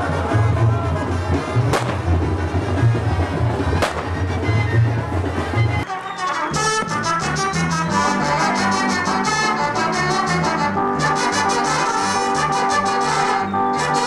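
Street carnival music with a heavy, pulsing low beat and two sharp cracks. About six seconds in, the sound cuts to a brass band playing a rhythmic tune with trumpets and trombones.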